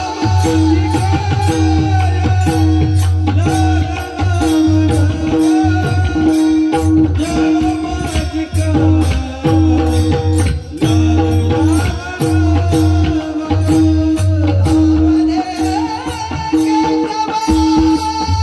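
Devotional bhajan music: a male voice sings a wavering melodic line over a pakhawaj drum keeping a steady rhythm of deep bass strokes and sharp slaps, with a sustained drone underneath.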